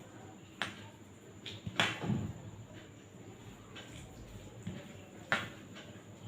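Eating sounds: a handful of short, sharp clicks and smacks, the loudest about two seconds in and again near the end, over low room noise.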